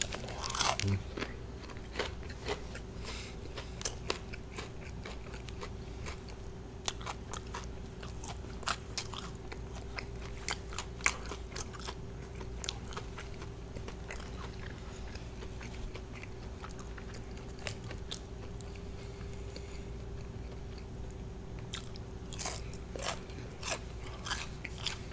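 Close-up eating sounds of KFC fried chicken: irregular sharp crunches as the breaded skin is bitten and torn, with chewing in between.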